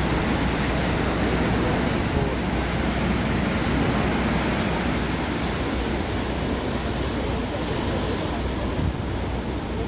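Steady rush of ocean surf below the cliff, mixed with wind on the microphone.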